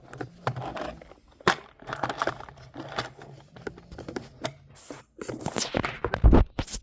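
Handling noise from a camera stand being grabbed and adjusted: irregular clicks, knocks and rubbing on the microphone, with a heavy thump near the end.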